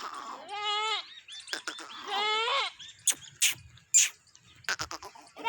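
Goat bleating twice, the second call bending up in pitch at its end, followed by a handful of sharp knocks, the loudest about four seconds in.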